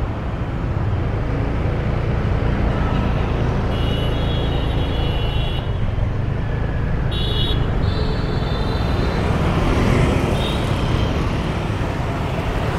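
Busy city road traffic: a steady rumble of vehicle engines and road noise, with two brief high-pitched tones about four and seven seconds in.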